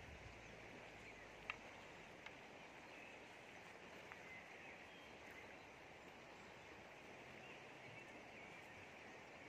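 Faint outdoor ambience: a steady rush of river water with faint bird chirps, and a single sharp click about a second and a half in.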